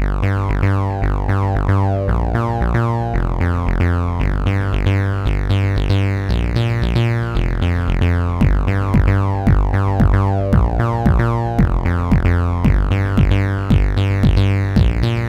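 Chiptune-style synthesizer music: a saw-shaped synth lead plays a repeating rhythmic note pattern over a steady bass.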